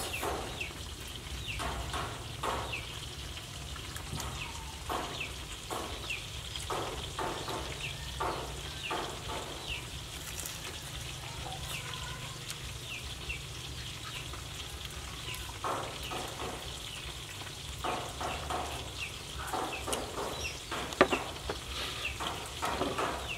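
Crunching and chewing of crispy batter-fried enoki mushrooms, in irregular clusters of bites, with one sharp knock near the end.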